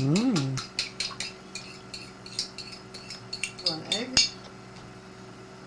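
Light clicks and clinks of kitchenware at a stainless steel mixing bowl while an egg goes into ground beef, with one sharper click about four seconds in.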